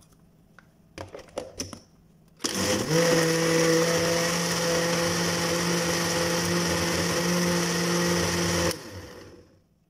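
A few light clicks, then a countertop blender starts, spins up and runs at a steady pitch for about six seconds, blending a milk-and-fruit smoothie. Near the end it switches off and winds down.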